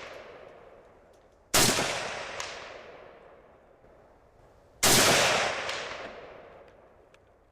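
Two single rifle shots about three seconds apart, each a sharp crack that rolls away in a long echoing tail, with the fading echo of a previous shot at the start. The shots come from rifles firing at steel plates 200 yards off.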